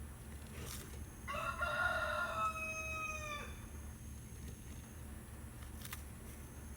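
A rooster crowing once: a single call of about two seconds that drops in pitch at its end.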